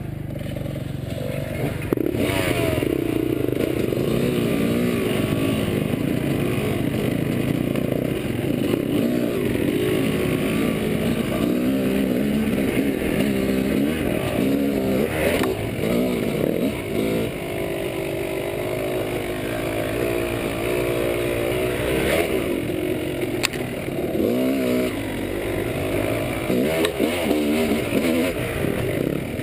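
Dirt bike engine heard from the rider's seat, running low at first, then revving up and down as the bike is ridden over a rough trail from about two seconds in. A few sharp knocks come from the bike over the rocky ground.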